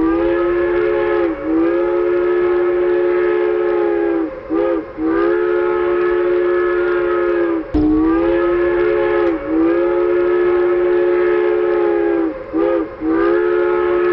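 Chime steam-locomotive whistle, several notes at once, blowing long blasts with two short toots in between. The sequence plays twice.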